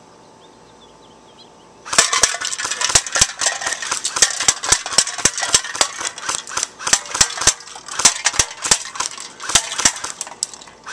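Airsoft M14 sniper rifle fired rapidly in semi-auto: a quick string of sharp shots, several a second, starting about two seconds in.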